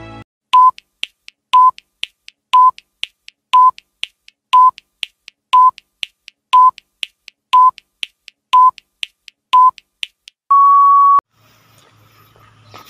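Countdown timer sound effect: ten short beeps, one a second, with a faint tick between each, ending in one longer, slightly higher beep.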